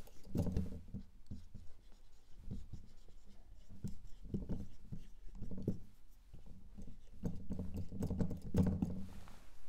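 Someone writing by hand on a writing surface: short, irregular runs of scratchy strokes with brief pauses between them.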